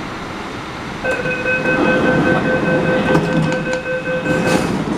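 Door-closing warning tone of an MTR C-Train, one steady electronic tone lasting about three and a half seconds as the doors move, with a few clicks near the end over the rumble of the train standing at the platform.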